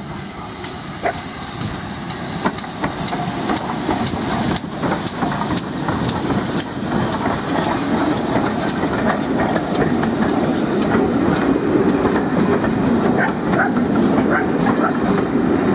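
GWR Modified Hall class 4-6-0 steam locomotive 6960 Raveningham Hall approaching and passing close by with a steam hiss, growing steadily louder. Its coaches follow, clattering over the rail joints.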